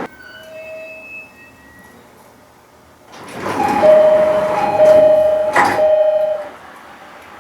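JR East E501 series train door chime: a two-note chime sounds several times over the rush of the sliding doors moving, with a sharp knock as they shut near the end. A few faint chime tones come in the first two seconds.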